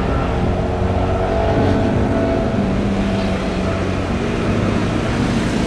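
Boeing 777's jet engines at takeoff thrust as the airliner climbs out: a loud, steady rumble with a few held humming tones.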